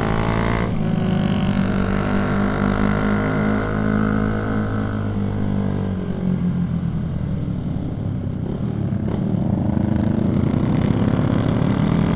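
Motorcycle engine running under way. The engine note holds fairly steady, drops about halfway through, then slowly rises again toward the end.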